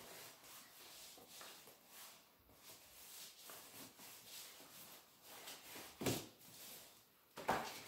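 Faint rubbing and rustling of paper as hands press glued paper down onto a cardboard book cover, with a short louder noise about six seconds in.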